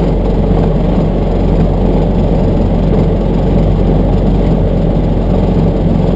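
Vehicle engine running steadily with tyre and road rumble, heard from inside the cab while driving on a dirt road.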